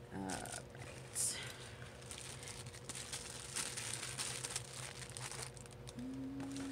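Crinkling and rustling of plastic as items are rummaged through and handled, irregular throughout, with a short hummed voice near the end.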